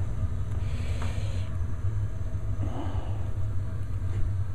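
Steady low rumble of a gas burner firing under a 50-gallon gas water heater as it heats the tank, with a faint brief hiss about a second in.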